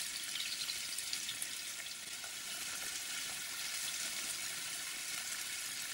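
Sliced onions frying in oil in a pan, a steady sizzling hiss with fine crackles, stirred with a wooden spatula.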